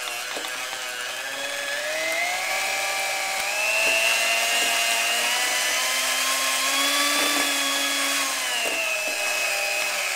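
Electric hand mixer running, its beaters creaming a stick of butter in a glass bowl. The motor whine climbs in pitch over the first few seconds, holds, and dips slightly near the end, with a few brief knocks.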